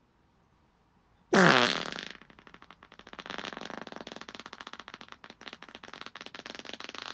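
Human fart: a loud, pitched blast about a second in that rises in pitch, then runs into a long, rapid, sputtering flutter lasting about five seconds.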